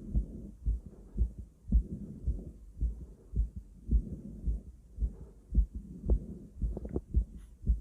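A human heartbeat heard through a stethoscope on the chest: a steady run of dull, low lub-dub thumps, with soft breath sounds coming and going between them. A few faint clicks come near the end.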